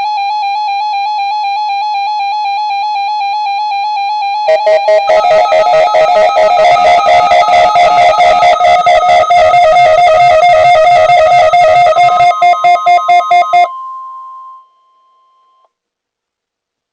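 Weather radio's alert siren: an electronic warbling alarm tone, steady at first, then about four and a half seconds in it turns louder and pulses rapidly. It cuts off near the end, leaving a higher steady tone that fades out about a second later.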